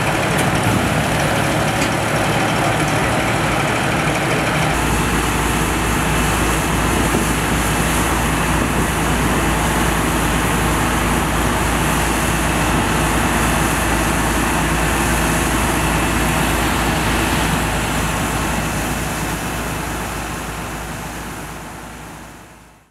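Vintage fire engines running their pumps, a steady engine drone under a rush of spraying water streams. The sound shifts about five seconds in and fades out near the end.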